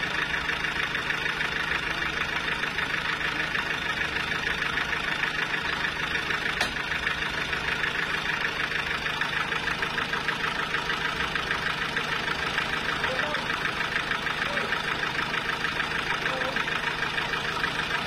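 Homemade sawmill's engine running steadily with a fast, even pulse, idling while the saw is not cutting.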